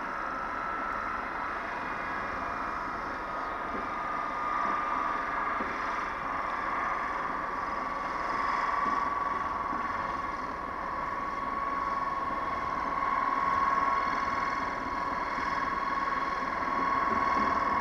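Class 73 electro-diesel locomotive running under power with a high steady whine over a low rumble. The whine rises in pitch just before the start, then holds and sinks slightly in pitch.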